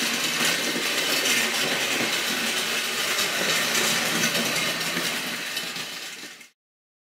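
Battery-powered Distler H0 toy trains running on tinplate track: a steady mechanical whir with a fine clicking rattle of metal wheels on metal rails, fading out about six seconds in.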